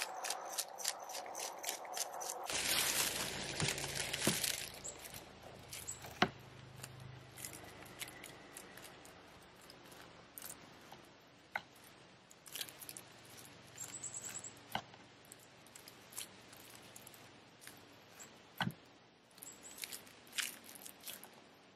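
A knife slicing the kernels off a cooked ear of corn on a wooden cutting board: soft crunching cuts with scattered sharp taps.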